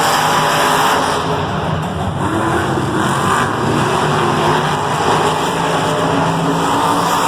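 Monster truck engines running and revving hard during racing, their pitch rising and falling.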